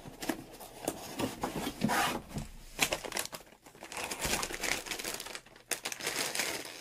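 Plastic anti-static bag crinkling and rustling as it is handled, mixed with cardboard box handling: scrapes and light knocks.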